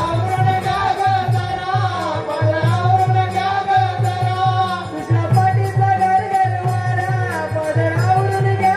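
Live folk music for a Konkani Naman performance: a sung melody over a quick, steady hand-drum beat.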